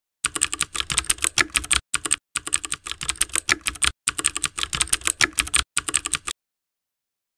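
Keyboard typing sound effect: quick keystrokes in several runs with short breaks, as on-screen text types itself out letter by letter. It stops about six seconds in.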